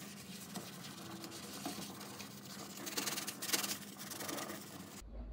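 Stovetop being scrubbed with detergent: a steady, faint rubbing and scratching of many short strokes, a little louder about three seconds in.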